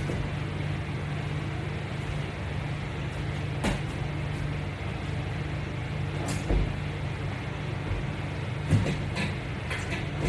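Exercise equipment giving a few scattered clicks and knocks over a steady low hum.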